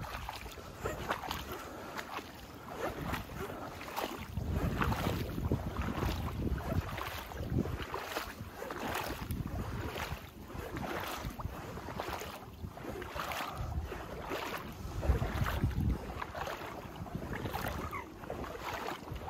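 Wind buffeting the microphone in uneven low gusts, with a short swishing sound repeating roughly once a second.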